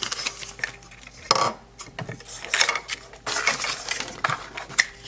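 Small plastic toy pieces and packaging clicking, tapping and rustling as they are handled, in irregular short clicks with a louder burst about a second in.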